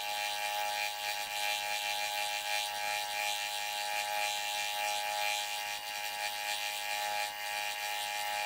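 A 10x22 metal lathe milling with a boring bar in its spinning chuck as a fly cutter. The bar takes a steady interrupted cut across a metal workpiece clamped to the cross slide, giving a continuous rapid chatter over a steady whine. Each turn the cutter strikes the metal, which hammers the lathe.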